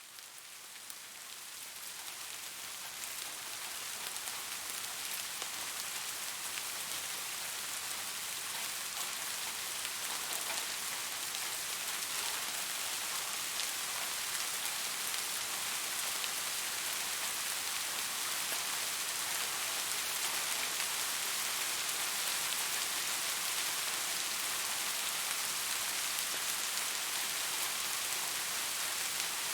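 Steady rain falling, an even hiss dotted with many fine drop ticks, fading in from quiet over the first few seconds and then holding level.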